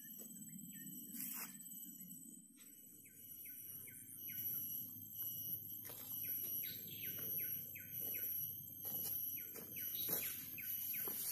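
A bird calling a long run of short, falling chirps, about three a second, over a steady high-pitched whine, with a few sharp clicks.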